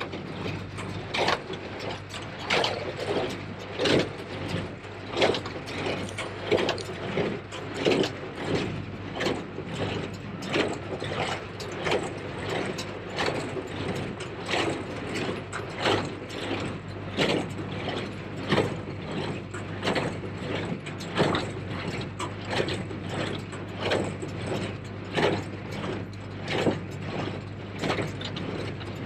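New Holland 273 small square baler running behind a Case IH JX75 tractor: a rhythmic mechanical clatter with a heavy beat about every second and a third, and steady clicking of the baler's moving parts in between, over the tractor engine's steady hum.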